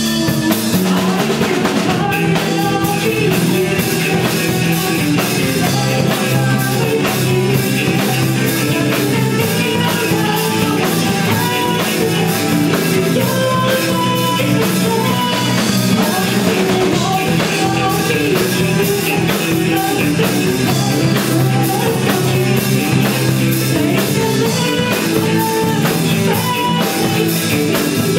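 Rock band playing a song live: drum kit keeping a steady beat under electric guitars, with a melody line over the top.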